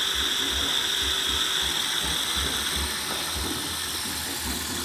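Homemade fidget-spinner pulse motor running, with the spinner whirling past its drive coil: a steady high-pitched whine and regular low pulses about three a second.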